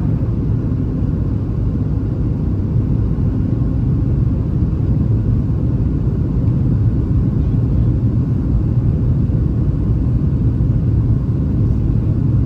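Steady low rumble inside the cabin of a Boeing 737-700 in flight: CFM56-7B engine and airflow noise heard from a window seat.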